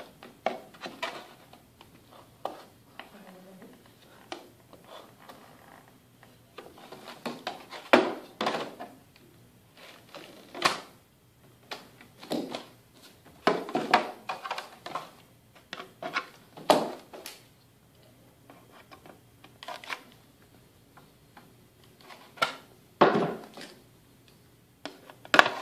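Thick plastic shin armor being trimmed by hand with a cutter: irregular crisp clicks and crunches as the blade bites through the plastic, coming in bunches with short pauses between.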